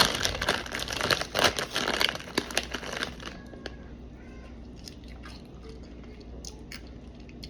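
Takis rolled tortilla chips being bitten and chewed close to the microphone: loud crunching for about three seconds, then quieter, scattered chewing.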